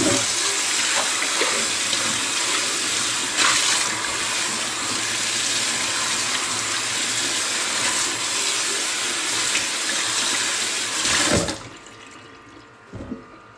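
Kitchen tap running with warm water onto a rusty cast iron skillet in a stainless steel sink as it is rinsed. The water shuts off suddenly near the end, followed by a couple of light knocks.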